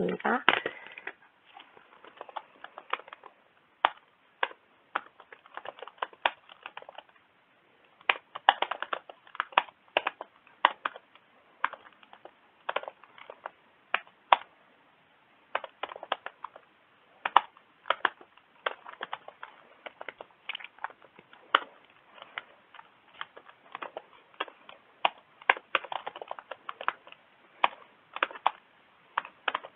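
Computer keyboard typing: quick runs of keystroke clicks with short pauses between them.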